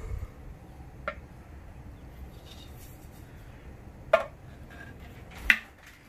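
Hard plastic clicks and knocks as a part is fitted into the clear plastic dust container of an Anway Clear Trak upright vacuum: three sharp knocks, a light one about a second in and louder ones about four and five and a half seconds in.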